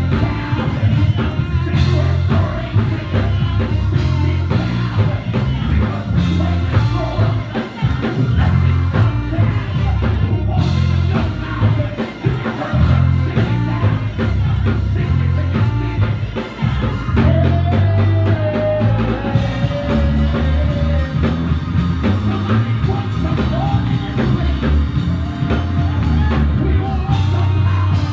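Live band music with a strong bass and drum kit, and a voice singing over it.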